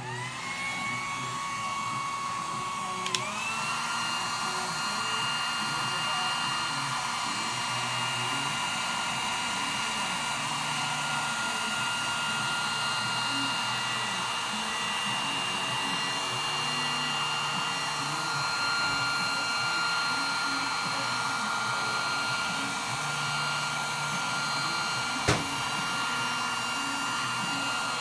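Hand-held heat gun switched on and blowing hot air across wet epoxy resin: a steady whine and hiss of air that rises as the motor spins up, steps up in pitch about three seconds in as it goes to a higher setting, then holds steady. A sharp click sounds about three seconds in and again near the end.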